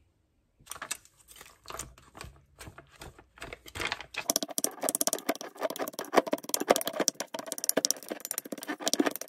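A few soft rustles and ticks as the sushi-seasoning pouch is handled and squeezed out. Then, from about four seconds in, a plastic rice paddle mixes the seasoning into rice in a glass bowl, making a busy run of small clicks and scrapes against the glass.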